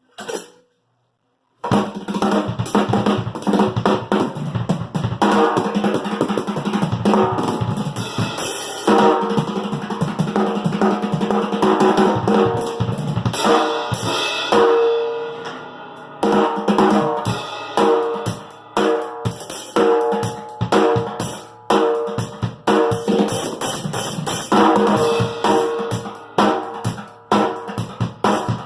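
Music with a drum kit playing, kick, snare and cymbals, starting suddenly about two seconds in after a brief knock.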